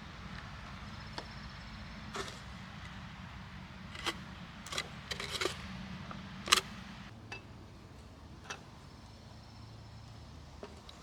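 A series of short, sharp clicks and knocks, about eight of them, with the loudest about six and a half seconds in, over a steady low hum.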